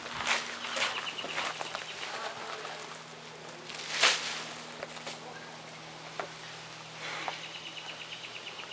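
Footsteps crunching on gravel and a plastic garbage bag rustling, with one louder brief crunch about four seconds in. A fast, high trill sounds twice in the background, under a steady low hum.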